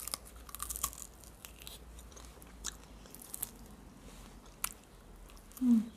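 Close-up biting and chewing of fried chicken on the bone, the crisp skin crunching. The crunches come in a dense cluster in the first second, then single ones spaced out.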